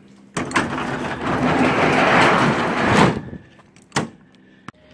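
Truck-bed tonneau cover sliding shut over the bed for about three seconds, then a sharp click about a second later as it latches.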